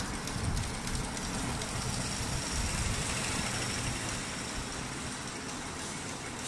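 Computerized multi-needle embroidery machine running steadily as it stitches, a continuous mechanical hum with a fast, even run of needle strokes.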